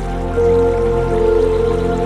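Calm new-age ambient music of long held notes, with a brighter note swelling in about half a second in.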